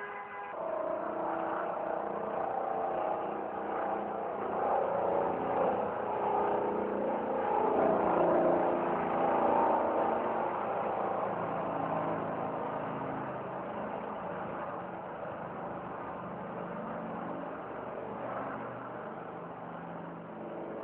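Street traffic: a motor vehicle's engine draws closer, grows loudest about eight to ten seconds in, then slowly fades as it passes.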